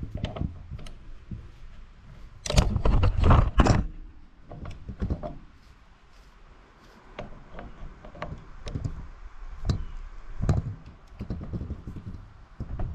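Locking pliers clanking and scraping on a corroded battery cable terminal: a dense run of sharp metallic knocks between about two and a half and four seconds in, then scattered clicks as the crusty clamp is worked for a better connection.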